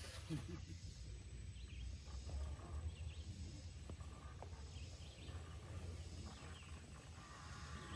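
Faint woodland ambience: birds chirping in the distance over a steady low rumble, with a few light clicks.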